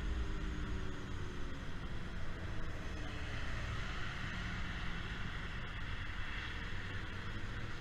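Yamaha Zuma 50cc scooter's engine running while being ridden, its pitch falling gently over the first few seconds, under a steady rush of wind and road noise.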